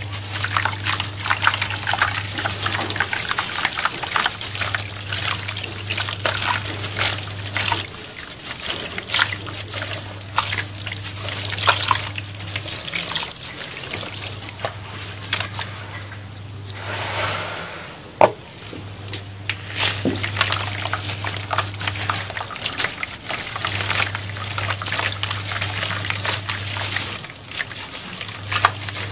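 A dry lump of sand and cement mix crumbled by hand, its fine grains pouring and trickling into a plastic tub with many small gritty crackles as the lump breaks apart.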